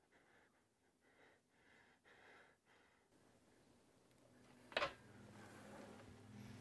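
Near silence, broken about five seconds in by one short, sharp click; a faint low drone begins near the end.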